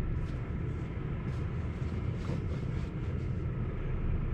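Articulated lorry's diesel engine rumbling steadily as it creeps past close alongside, heard from inside a stopped car's cabin, growing slightly louder towards the end.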